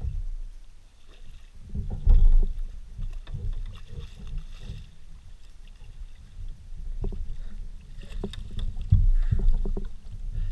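Hooked fish thrashing and splashing at the surface beside a fishing kayak, with knocks and low rumbling from the hull and gear as the angler fights and nets it; the heaviest thumps come about two seconds in and again near the end.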